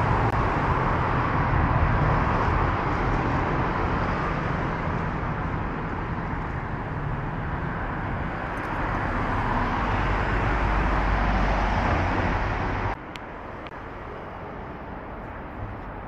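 Road traffic on a busy city street, cars and buses passing, swelling and fading as vehicles go by. It cuts off suddenly about thirteen seconds in, leaving a much quieter background.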